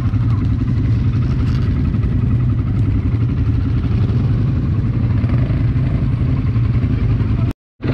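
ATV engine running steadily under way, a low, even drone. The sound cuts out abruptly for a moment near the end.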